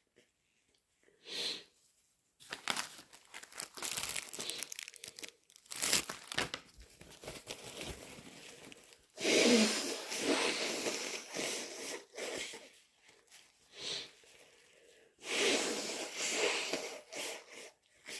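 Paper tissue crinkling and rustling, then a person blowing their nose hard into it twice, about nine seconds in and again about fifteen seconds in.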